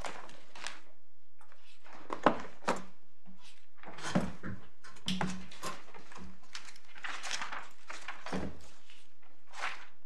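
Paper rustling as pages are leafed through and handled close to a microphone, with a few sharp knocks, the loudest about two seconds in.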